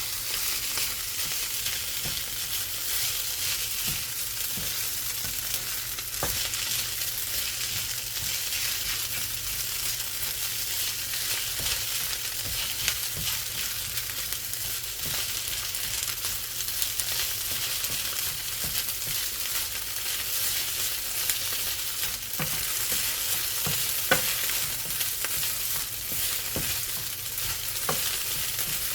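Fried rice with sausage and vegetables sizzling steadily in a hot pan while it is stirred, with scattered light scraping and clicks of the utensil against the pan.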